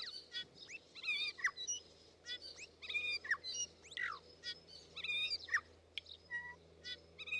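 Several songbirds chirping and singing together, a busy run of short whistles and falling sweeps overlapping one another.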